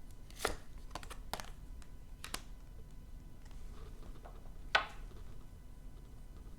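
Tarot cards being handled on a table: a handful of light taps and clicks, the loudest a sharp snap near the end.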